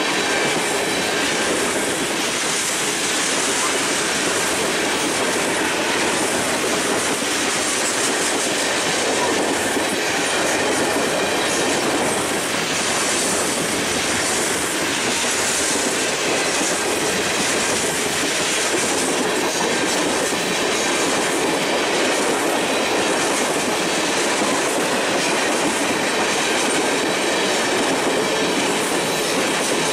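Freight train's tank cars and covered hoppers rolling past at close range: a steady rumble and rattle of steel wheels on the rails.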